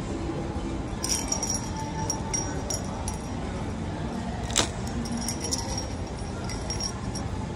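Metal souvenir key rings clinking and jangling together as they are handled on a wire display rack, in scattered light clinks with one sharper clink about four and a half seconds in, over steady shop background noise.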